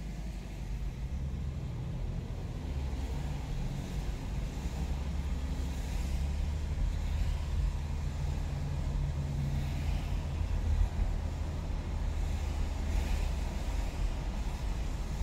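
Low, steady road and engine rumble of a car as heard from inside the cabin while driving in traffic.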